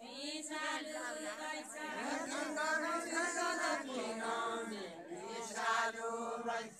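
Unaccompanied Deuda folk singing: several voices chanting a song together in long, drawn-out phrases.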